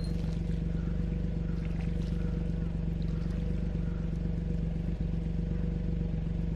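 Old-model Suzuki Jimny's engine running at a steady speed: an even, low drone that holds the same pitch and level throughout.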